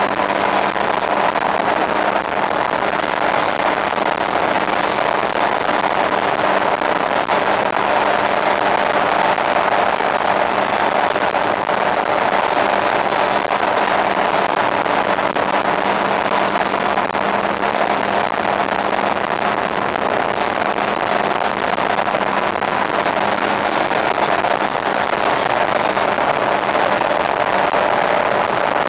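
A boat's motor running at a steady cruising speed, a constant drone with a broad rush over it.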